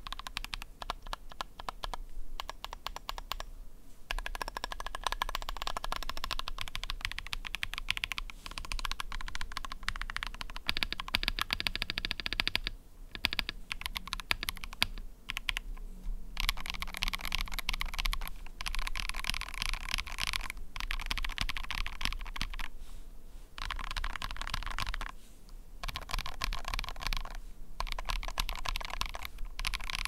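Typing on a KUIH60 aluminium-case 60% mechanical keyboard with KTT Matcha tactile switches, a PC plate and SA-profile keycaps: a dense run of keystroke clacks in bursts of a few seconds, broken by brief pauses.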